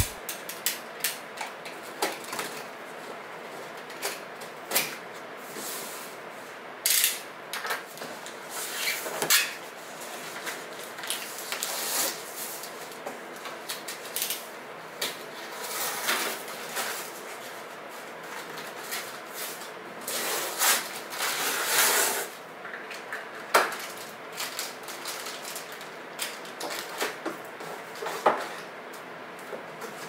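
Packing tape being peeled by hand off a cardboard delivery box: several longer tearing strips among scattered taps and clicks of cardboard and small items being handled.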